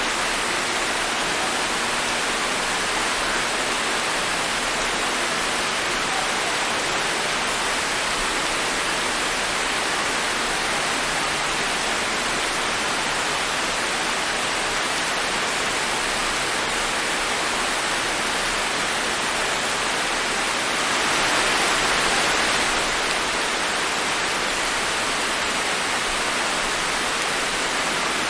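Steady rain falling, an even hiss of many drops that swells briefly a little over twenty seconds in.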